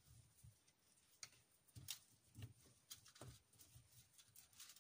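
Near silence with a few faint, scattered clicks and rustles of beaded wire branches being handled.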